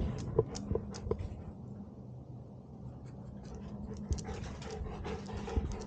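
A dog panting right at a collar-mounted camera, a quick rhythmic panting that becomes clearer after about four seconds, with a few light clicks in the first second.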